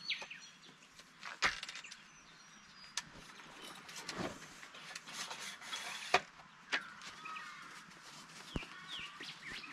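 Scattered knocks and clicks as a 4WD's roll-out side awning and its poles are taken down and packed away, the loudest about a second and a half in and again around six seconds. Birds chirp in the background, most near the end.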